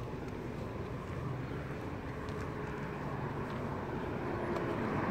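Low, steady rumble of a distant engine, growing a little louder toward the end.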